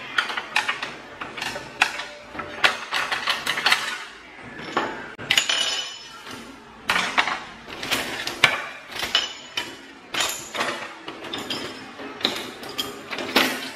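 Kitchen utensils, chopsticks and metal tools, clinking and clattering as they are handled in a drawer and dropped into the compartments of a bamboo cutlery tray: a steady run of irregular sharp knocks and clinks.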